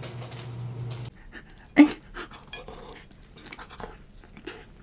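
Close-up wet mouth sounds of eating soft frosted cake: scattered lip smacks and chewing clicks, one louder about two seconds in. A steady low hum runs under the first second and then stops.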